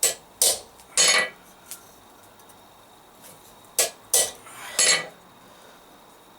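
Hammer striking a chisel to cut veins into a hot forged metal leaf: sharp metallic clinks, three near the start and three more about four seconds in, some ringing briefly.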